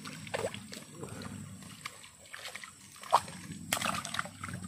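A hooked tilapia splashing and thrashing at the pond surface as it is led in on a fishing pole, in irregular short splashes.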